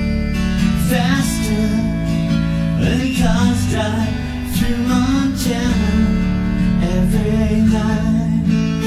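A man singing with his own acoustic guitar accompaniment, the guitar strummed under a wavering vocal melody.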